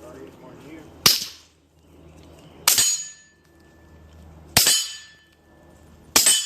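Four suppressed shots from a 9mm Sig P226 pistol fitted with a SilencerCo Octane 9 HD suppressor, firing 147-grain subsonic rounds, spaced about one and a half to two seconds apart. Each shot is a sharp, short report. A faint ringing tone lingers after the third and fourth.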